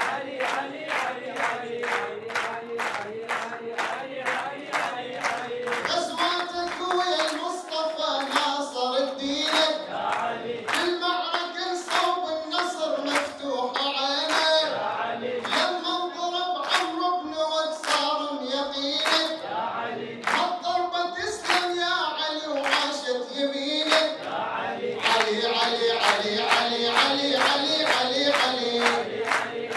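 Audience handclaps in a steady, quick beat, with a group of voices chanting an Arabic devotional praise song in chorus.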